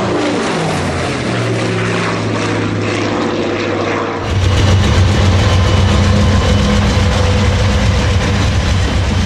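A radial-engined propeller fighter plane flying past overhead, its engine note falling in pitch as it goes by. About four seconds in it cuts abruptly to the louder, steady low drone of GE 7FDL-16 diesel engines in locomotives working past.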